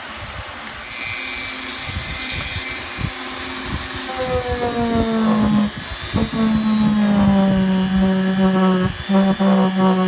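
Dremel rotary tool switched on about a second in, running with a high whine. From about four seconds its pitch drops lower and wavers as it is pressed onto the metal, with brief dips near the end.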